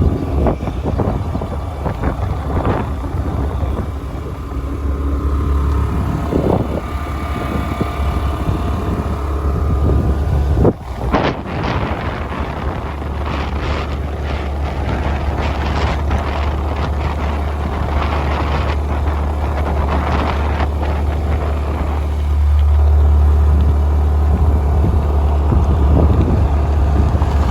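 Wind buffeting the microphone over vehicle and road noise while travelling along a road. It is a steady, loud rumble with a brief drop about eleven seconds in, and it grows louder near the end.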